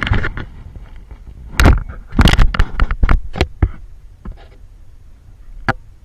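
Knocks, scrapes and crackles of a handheld camera being handled and moved, loudest in two clusters about one and a half and two and a half seconds in, with scattered sharp clicks after.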